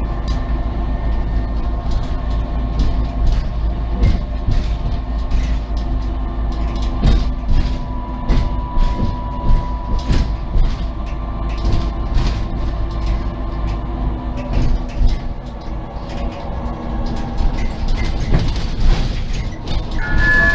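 Cabin noise of a SOR NB 12 city bus under way: steady engine and road noise with frequent rattles and knocks from the body and fittings. A short tone sounds near the end.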